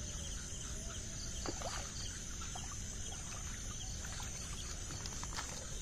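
Steady high-pitched chirring of night insects, with faint scattered clicks and small rustles of handling close by.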